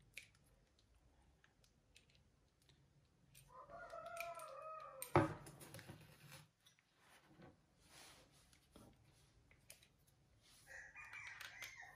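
Light clicks and taps of a Shimano Stella spinning reel being handled as its crank handle is fitted, with one sharp click about five seconds in. A short pitched call sounds faintly in the background about three and a half seconds in, and again near the end.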